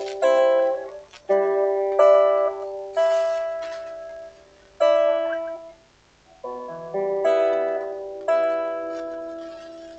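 Guitar played freestyle, slow chords and notes plucked one after another, about eight strikes, each left ringing and dying away. There is a short gap about two-thirds through, and a final chord rings out and fades near the end.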